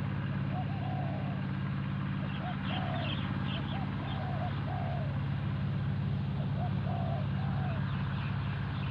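Spotted doves cooing: short phrases of three or four soft, arched notes repeated every couple of seconds, with a few faint higher chirps of small birds about three seconds in. A steady low hum runs underneath.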